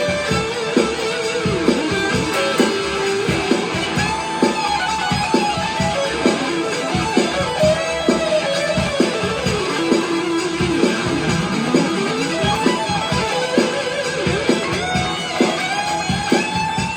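Electric guitar played through an EVH 5150 Overdrive pedal: an overdriven lead line of quick picked notes with string bends.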